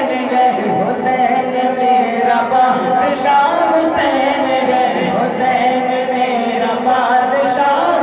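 Male voice singing a naat, an Islamic devotional song, into a handheld microphone, with the melody bending and breaking phrase by phrase.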